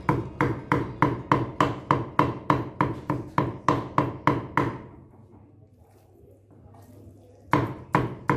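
Background music of plucked guitar notes on a steady beat, about four notes a second. It breaks off for a couple of seconds past the middle and resumes near the end.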